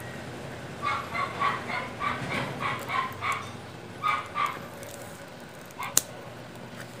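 A dog yapping in a quick run of short, high barks, about three a second, then two more after a brief pause. Near the end comes a single sharp snip of scissors cutting through the cucumber's stem.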